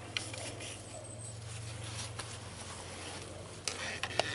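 A few faint, scattered metal clicks and scrapes from handling the hydraulic cylinder's rod end while it is drawn out to be pinned, over a steady low hum.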